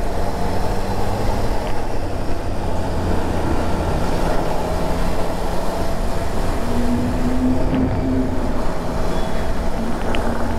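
Triumph Trident 660's inline three-cylinder engine running steadily at a cruise of about 50 km/h in fourth gear, with road and wind noise, heard from the rider's seat.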